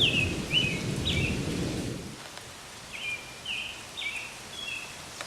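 Thunder rumbling and dying away about two seconds in, over steady rain. A bird repeats short chirping calls, a few at the start and more in the second half.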